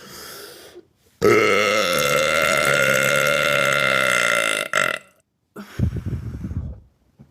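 A woman's long, loud belch lasting about three and a half seconds, slightly falling in pitch, followed about a second later by a shorter, lower, rougher burp.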